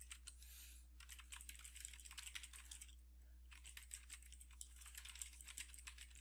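Faint, fast typing on a computer keyboard: a quick run of key clicks with a short pause about halfway through.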